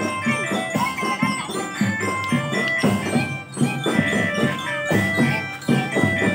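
Children's marching drum band playing a tune: ringing bell lyre (belira) notes over repeated drum beats.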